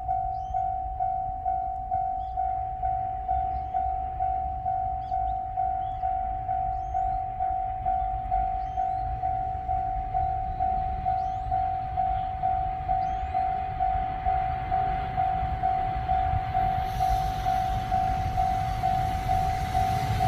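Japanese railway level-crossing warning bell ringing, a single steady tone struck about twice a second. From about 17 seconds in, the hiss and rumble of an approaching train rise beneath it.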